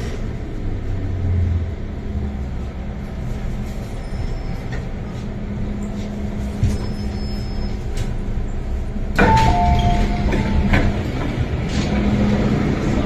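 Hong Kong MTR Island Line M-Train at a station: a steady electric hum from the train. About nine seconds in it gets louder with a rushing noise and a brief two-note electronic tone.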